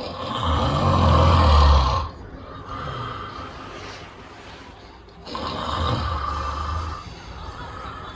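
A sleeping person snoring loudly: two long, deep snores about five seconds apart, each followed by a quieter breath.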